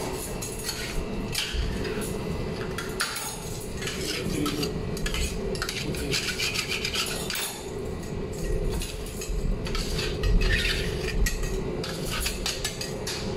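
Scraping and scrubbing strokes of a hand-held cleaning tool across a heated steel flat-top griddle coated with grease cutter, going irregularly back and forth. A steady hum runs underneath.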